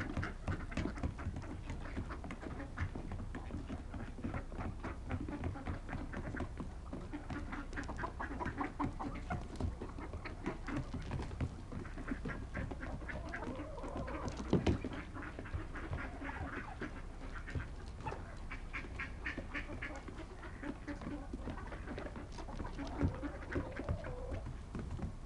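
Mixed flock of wild turkeys, mallard ducks and chickens feeding, with ducks quacking over a dense run of short clicks and scattered calls.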